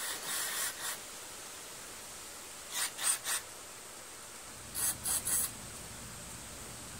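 Aerosol carburetor cleaner squirted through a red extension straw into the fuel passages of a Kohler Command V-twin carburetor. It hisses in short bursts, a cluster of three quick squirts near the start, about three seconds in and about five seconds in, as the passages are blown out to clear blockages.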